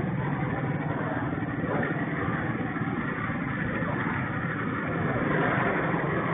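Motor vehicle engines running steadily in street traffic, with a low, even engine hum under a general street noise.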